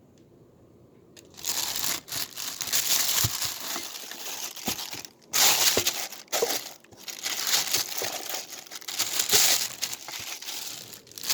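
Packaging being crumpled and rustled by hand as fan parts are unwrapped, starting about a second in and running on with brief pauses.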